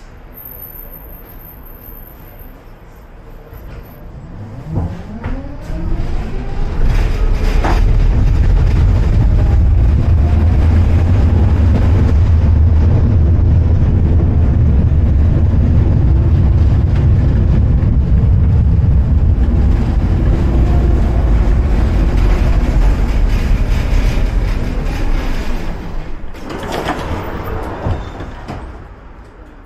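Tram pulling away: a whine that rises in pitch about five seconds in, then a loud, steady low rumble of the wheels on the rails, dying away near the end as the tram slows.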